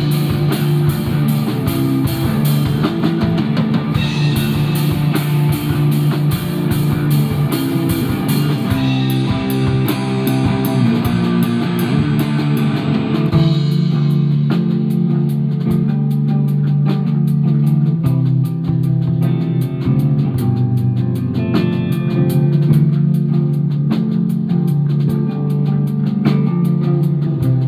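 Live instrumental rock from electric guitar, electric bass and drum kit, with no singing. About halfway through the cymbal wash drops out and the guitar, bass and lighter drums carry on.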